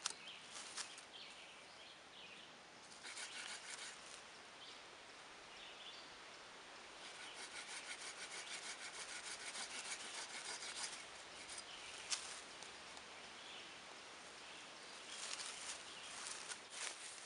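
Folding pruning saw cutting through a wooden branch: several runs of quick back-and-forth strokes with short pauses between, and a single sharp click about twelve seconds in.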